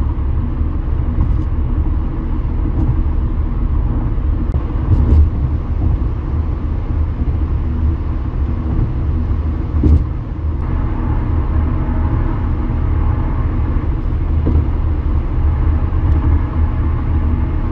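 Steady low road and tyre rumble of a car driving at highway speed, heard from inside the cabin, with a few brief knocks about five and ten seconds in.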